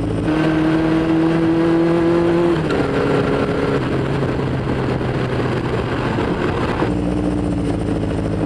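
Honda CB500 Four's inline four-cylinder engine running on the road, its note holding steady, then shifting about two and a half seconds in. A rushing noise masks the engine in the middle, and the steady engine note comes back near the end as the bike slows in traffic.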